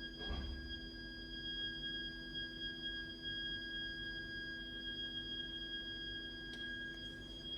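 Heating system's heat interface unit (HIU) and pipework giving off a continuous, steady high-pitched shriek, a shrill whistle-like tone over a low hum: an abnormal plumbing fault noise. A brief soft rustle just after the start.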